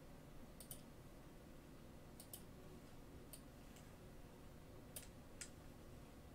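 Faint, irregular clicks, about eight in all and some in quick pairs, over quiet room tone.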